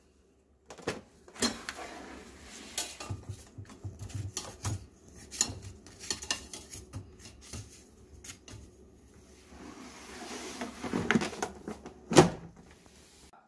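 An air fryer basket being handled: metal tongs click and knock against the basket as two sweet potatoes are turned over. A single loud knock comes near the end as the basket is pushed back into the fryer.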